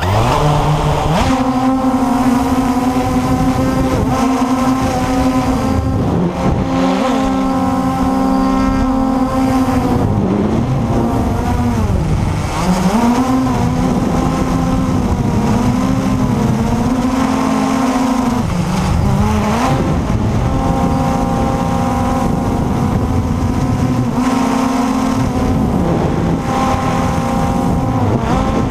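Blade 350 QX3 quadcopter's four electric motors and propellers whining loudly, heard up close from the camera on the craft. They spin up in the first second or so, then hold a steady buzzing pitch that repeatedly dips and climbs back as the throttle changes in flight.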